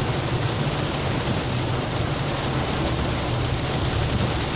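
Steady noise inside a car's cabin in the rain: an even hiss of rain and tyres on wet road over a low engine hum.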